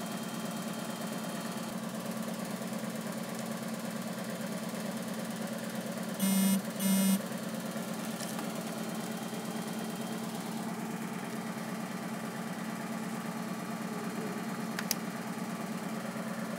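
A steady low mechanical hum, with two short electronic beeps in quick succession about six seconds in and a single sharp click near the end.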